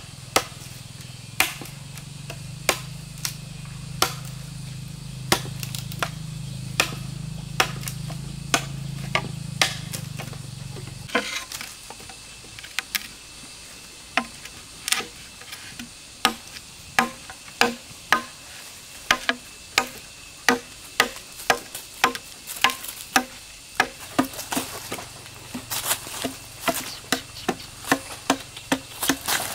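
Machete blade striking green bamboo poles, chopping notches into the tubes in a long run of sharp knocks. The strokes come roughly one a second at first and quicken to nearly two a second in the second half.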